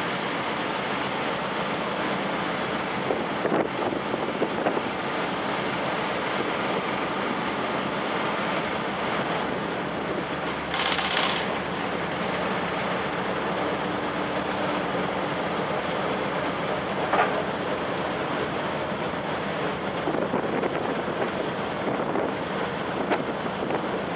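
Steady rush of wind and water on the deck of a moving car ferry, with a low hum from the ship's engines underneath. A short hiss comes about eleven seconds in.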